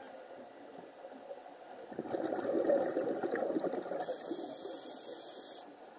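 Underwater water noise picked up through a camera housing: a steady rushing hiss that swells louder for about two seconds in the middle. A thin high whine comes in about four seconds in and stops shortly before the end.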